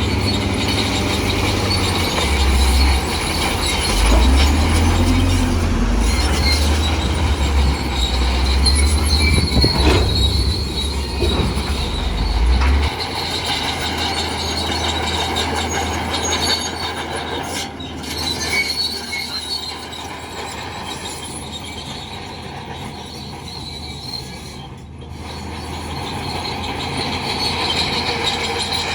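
Bulldozer working: a diesel engine rumbles while its steel crawler tracks squeal and grind. The deep engine rumble drops away about halfway through, leaving the track squeal and clatter.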